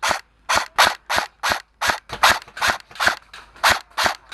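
Airsoft gun firing rapid single shots, sharp cracks at about four a second with uneven spacing.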